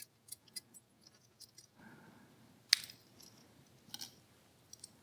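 Small clicks and ticks from handling a sprinkler's threaded fitting as it is screwed onto its female end over pipe tape, with one sharp click a little under three seconds in.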